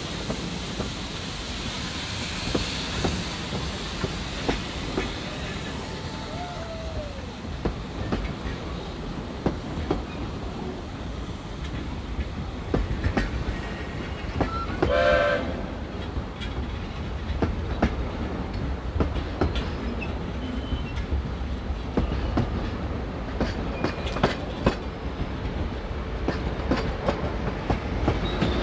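Narrow-gauge passenger coaches rolling past close by, with a steady rumble and frequent sharp clicks from the wheels over the rail joints. A brief high-pitched sound comes about halfway through.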